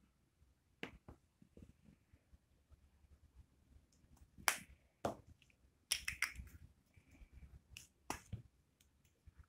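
Faint, sharp clicks and taps of hands handling a small glitter tube over slime on a tabletop: a few single clicks, then a quick run of them about six seconds in and another about eight seconds in.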